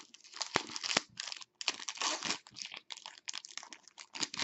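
Foil wrapper of a hockey card pack being torn open and crinkled by hand: a run of crackling, tearing bursts with short gaps.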